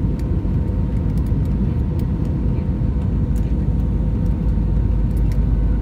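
Steady cabin roar of an Airbus A320-216's CFM56 turbofan engines and the rushing air, heard from a window seat over the wing during the landing approach with the flaps extended.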